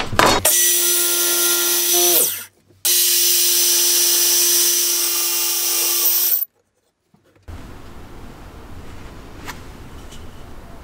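Makita sliding miter saw motor running with a steady high whine, winding down with falling pitch about two seconds in, then running again at the same pitch until it cuts off abruptly. Faint room tone follows.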